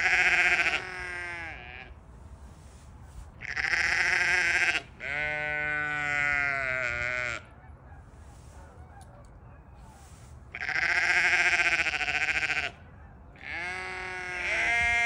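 Dorper sheep bleating: about five long, drawn-out bleats, some higher-pitched and some lower, with short pauses between them.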